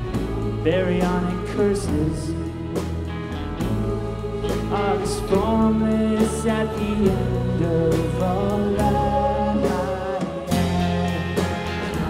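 Live song performance: a man singing lead over electric guitar and drums, with a choir and string orchestra behind him.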